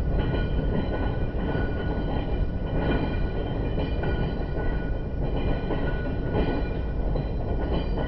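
Knoebels Twister wooden roller coaster's train being hauled up the lift hill, played back slowed down: a dense, continuous low rattle and clatter of the chain and train with a steady whine above it.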